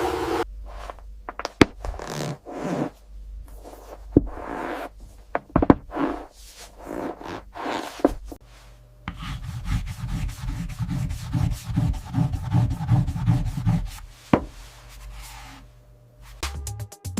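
Irregular rubbing and scraping strokes, with a few sharp knocks. About nine seconds in, a dense low rumbling sets in and lasts about five seconds.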